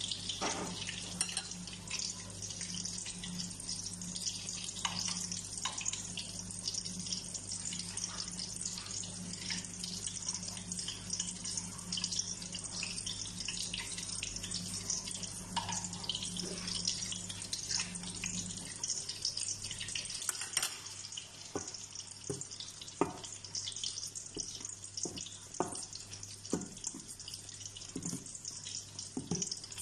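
Oil sizzling and crackling steadily under a moringa-leaf and egg omelette frying in a stainless steel pan. A low steady hum underneath stops about two-thirds of the way through.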